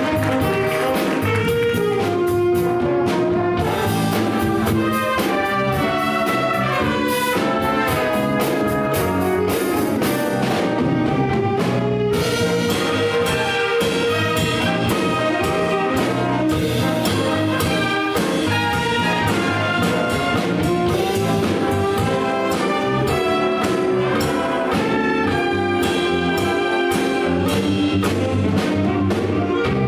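Live big band playing an up-tempo jazz chart, its brass section of trumpets and trombones playing loud, punchy ensemble lines over the rhythm section.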